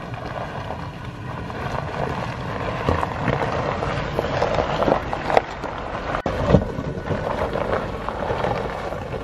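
Toyota Sequoia V8 4WD driving slowly past on a loose rocky trail, its tyres crunching over gravel and stones. The sound grows louder as it comes closer, with a few sharp clicks and knocks of stones under the tyres around the middle.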